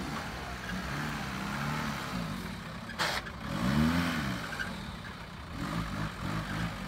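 Suzuki Vitara's 1.9 turbo-diesel engine revving up and down in low-speed off-road driving, with one clear rise and fall in revs about four seconds in. A sharp knock from the vehicle is heard about three seconds in.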